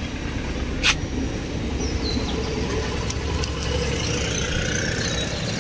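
Steady low rumble of a motor vehicle's engine running, with a single light click about a second in.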